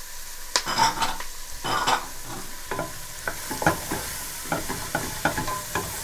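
Diced bell peppers, onion, carrot and garlic sizzling in oil in a pan while being stirred, a utensil scraping and knocking against the pan. The longest, loudest scrapes come about half a second and two seconds in, followed by a run of shorter knocks.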